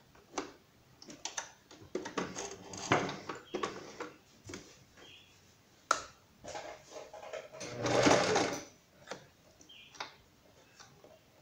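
Domestic electric sewing machine stitching patchwork strips in short runs, starting and stopping several times, with the longest and loudest run about eight seconds in. A single sharp click about six seconds in.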